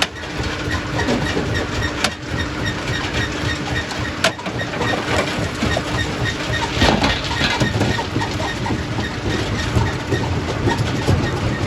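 Primary rock crusher running: a continuous heavy mechanical rumble with stones clattering and cracking irregularly, and two sharp knocks about two and four seconds in.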